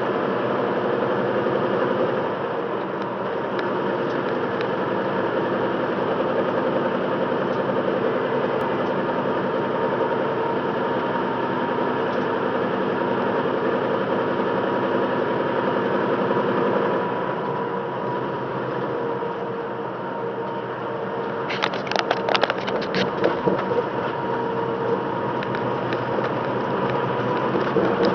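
Tractor-trailer's engine and road noise heard from inside the cab: a steady drone with a hum. About three-quarters of the way through comes a burst of short, sharp sounds lasting around two seconds.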